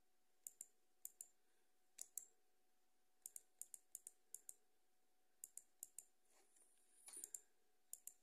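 Computer mouse button clicks, many in quick pairs, coming at irregular intervals as shape nodes are selected and edited. There is a brief soft noise about seven seconds in.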